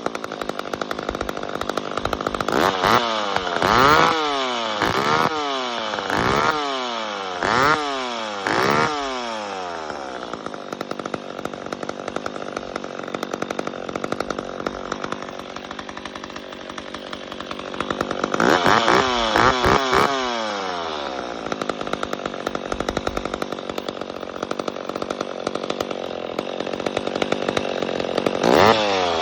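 McCulloch 1010 two-stroke chainsaw revved repeatedly in quick throttle blips, each rising and falling in pitch, then dropping back to idle for several seconds. It is revved again in a short burst after about 18 seconds and once more near the end.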